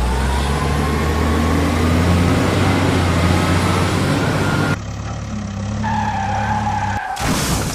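Heavy truck engine sound running and rising in pitch, over a hiss of splashing water. About two-thirds of the way through it cuts suddenly to a different, steadier engine sound with a held high whine, and there are short bursts of noise near the end.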